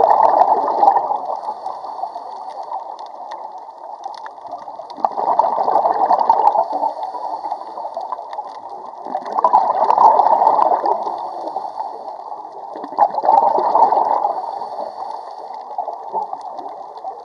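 Scuba diver's exhaled air bubbling out of the regulator underwater: four gurgling bursts about four seconds apart in a slow breathing rhythm, with a quieter hiss between them.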